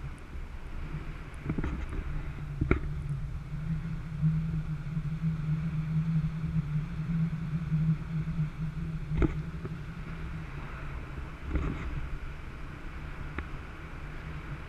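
Motorboat engine running steadily, with a few sharp knocks.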